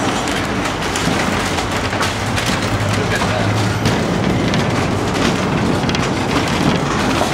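Funicular car running on its rails, a steady loud rumble full of small clicks and rattles, with a low hum swelling for a couple of seconds in the middle.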